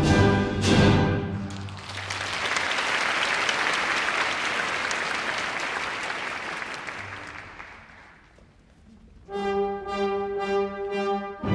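A live orchestra ends a dance on a final chord, then the audience applauds, the applause fading out over about seven seconds. About nine seconds in the orchestra starts again with repeated brass chords.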